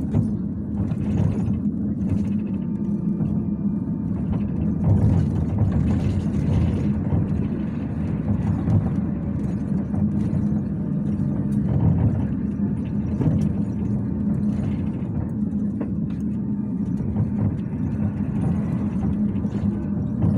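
Bogdan T701.10 trolleybus running, heard from inside the cabin: a steady low hum and road rumble, with scattered clicks and rattles.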